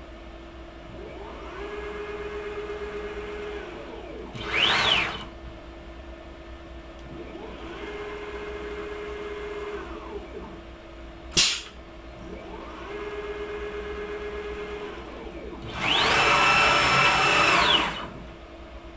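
CNC router's stepper-driven axes whining during an automatic tool change: three moves, each rising in pitch, holding, then falling as the gantry speeds up and slows down. There is a short loud rising-and-falling whine about five seconds in, a single sharp click about eleven seconds in, and a louder two-second burst near the end.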